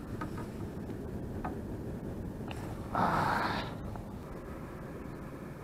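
A short, loud rush of air lasting under a second, about three seconds in, over a steady low background rumble.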